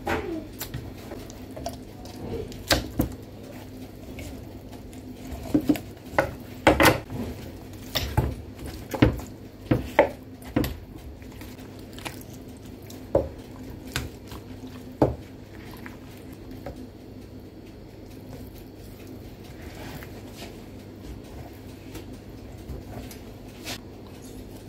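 Kitchen handling sounds as raw chicken is skinned: scattered clinks and knocks of a knife and dishes with soft wet squishing, over a steady low hum. Most of the knocks come in the first fifteen seconds, and it is quieter after that.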